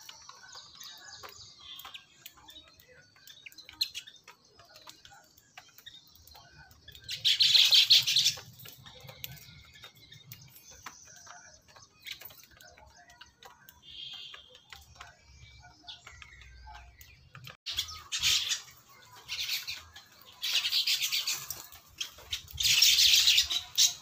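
Baya weavers chirping and chattering at a feeder. Busy high chirps run throughout, and louder bursts of harsh chatter come about seven seconds in and several times in the last six seconds.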